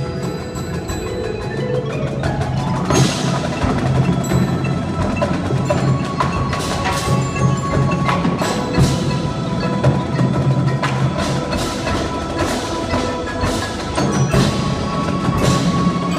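Indoor percussion ensemble playing: ringing mallet keyboards such as marimbas and vibraphones hold sustained tones. About two and a half seconds in, sharp drum and percussion hits join in and keep accenting the music.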